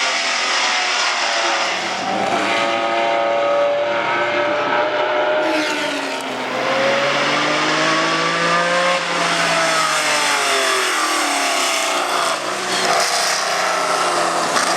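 Ferrari 512 M's five-litre V12 racing engine at high revs, its pitch rising and falling several times as it accelerates and changes gear.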